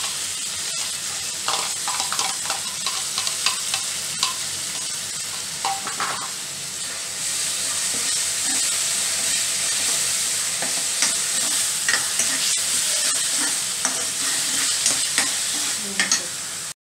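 Chopped tomatoes and green chillies sizzling in hot oil with fried onion in a non-stick kadhai, stirred with a steel spoon that scrapes and clicks against the pan many times.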